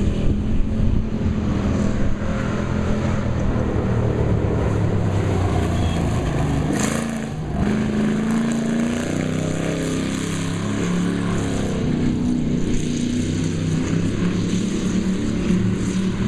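Dirt-track stock car engine running hard, its pitch rising and falling as the throttle is worked through the turns, with a short burst of noise about seven seconds in.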